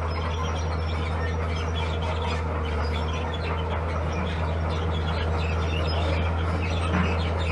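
Bulldozer's diesel engine running steadily under load, with scattered short high chirps and squeaks over it.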